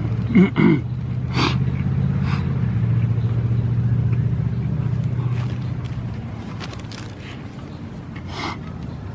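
A steady low engine hum that fades away about six seconds in, with two short squeaks near the start and a few sharp clicks.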